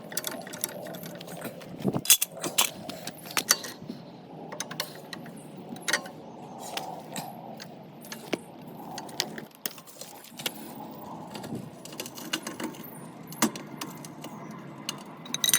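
Irregular metallic clicks and rattles from a car jack being worked to lower a car slightly.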